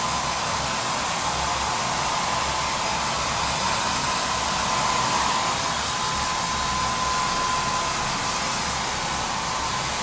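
Holistic Cure Dryer Rp hair dryer running steadily on its red high-airflow quick-dry mode: a loud, even rush of air with a thin steady whine. It is loud enough to drown out talking.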